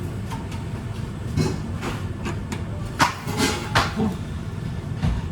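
Kitchen work sounds: a steady low rumble of background machinery with several sharp clatters and knocks of kitchenware, the loudest about three seconds in.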